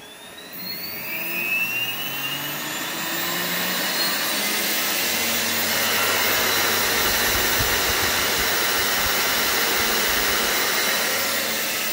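CNC spindle motor on a variable-frequency drive spinning up as its speed setting is raised: a whine that rises in pitch and grows louder over the first few seconds, then runs steady at high speed.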